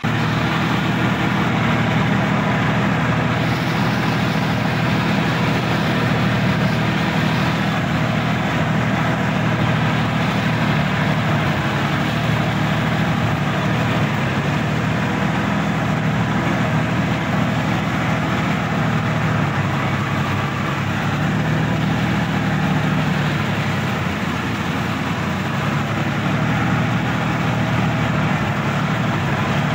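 Sonalika DI-50 RX tractor's diesel engine running steadily, heard close up from the driver's seat.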